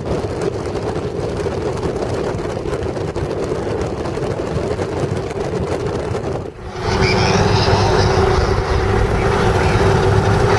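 A vehicle in motion, with a steady engine hum over road noise. About six and a half seconds in, the sound drops out for a moment and comes back louder and fuller.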